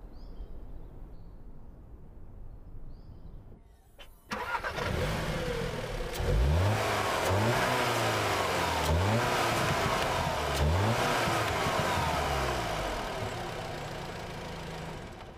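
Audi S3's turbocharged 2.0-litre TFSI four-cylinder engine starting about four seconds in, then revved with about four quick throttle blips, each rising and falling in pitch, before fading toward the end.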